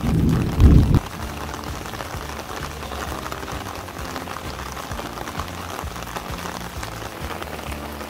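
Steady rain falling and pattering on garden plants and surfaces. A loud low rumble in the first second is the loudest sound.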